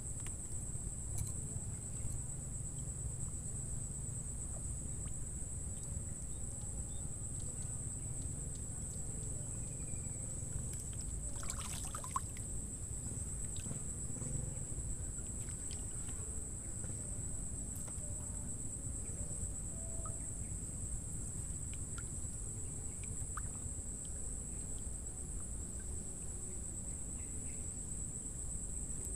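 Steady high-pitched insect chorus over a low rumble of wind on the microphone, with one brief sharp swish about twelve seconds in.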